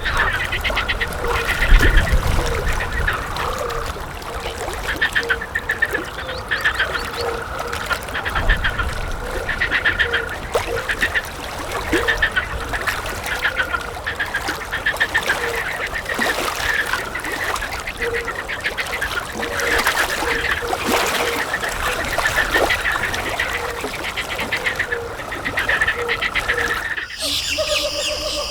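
Birds calling, with many short calls repeated and overlapping. Near the end the sound cuts abruptly to a steady high-pitched hum.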